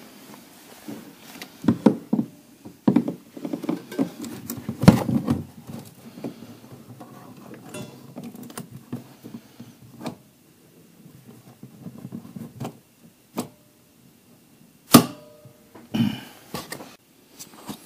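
Workshop handling noise while air lines are pushed into the fittings of a set of air shocks: scattered light knocks, clicks and rustling, with two sharp clicks near the end.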